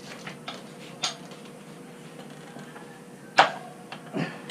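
Metal tire irons clicking and clanking against a motorcycle wheel rim while being worked in between the tire bead and the rim: a light click about a second in, a sharp ringing clank a little past three seconds, and a softer knock near the end.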